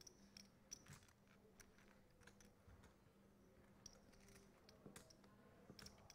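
Near silence: faint, scattered clicks of poker chips being handled at the table, over a low steady hum.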